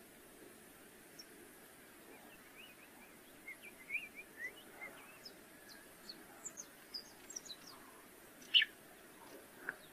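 Faint, scattered bird chirps and short twittering notes in the background, with a couple of slightly louder single chirps near the end.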